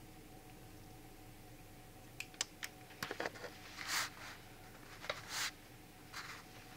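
Small plastic clicks and taps from a Playmobil figure being handled on a table, starting about two seconds in, with two brief rustles of its foil blind bag around the middle.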